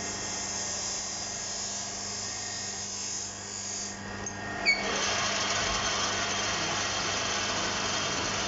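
Metal lathe with a steady motor hum while the chuck stands still, then a sharp click about halfway through as the spindle is engaged. After that comes a louder, even whirring as the chuck spins and the tool turns the brass bush.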